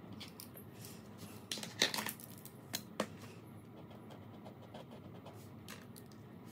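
Sharpie marker and pens on paper and a tabletop: faint writing sounds with a cluster of sharp clicks and taps about two seconds in and single taps near three and near six seconds, over a steady low hum.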